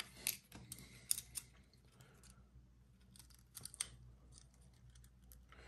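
Faint clicks and taps of a hard plastic Yo-Zuri trolling lure and its metal treble hooks being handled, coming in small scattered clusters with pauses between, over a faint steady low hum.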